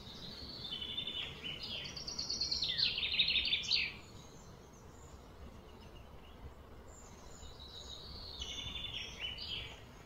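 A songbird singing: a rapid run of high chirping notes lasting a few seconds, then a softer second phrase near the end.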